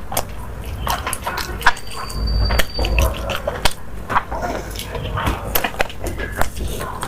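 Close-miked eating: wet chewing and slurping, with many small sharp clicks at irregular intervals.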